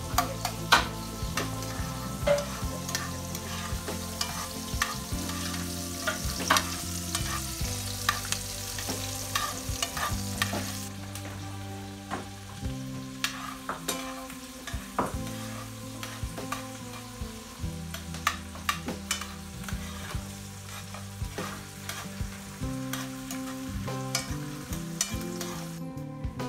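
Food sizzling in a frying pan on a wood-burning stove top while it is stirred with a fork, which scrapes and clicks against the pan. The sizzle thins out about eleven seconds in, and small clicks and scrapes go on.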